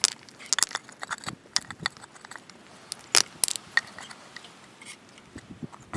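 Small stones and decorative pebbles clicking and clinking against each other as they are set by hand into a gravel bed, in irregular sharp clicks with one louder knock about three seconds in.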